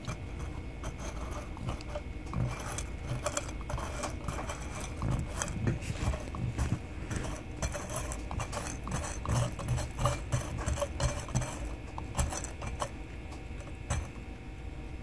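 A stirring rod scraping and clinking against gold-plated pins and the bottom of a glass jar of acid, in quick irregular strokes. The clinking stops about a second before the end.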